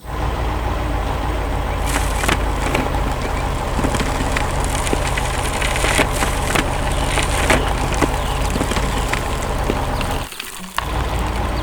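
Heavy excavator engine running steadily under a dense crackle of wood splintering and snapping, with frequent sharp cracks as trees are broken. The sound drops away for a moment about ten seconds in, then comes back.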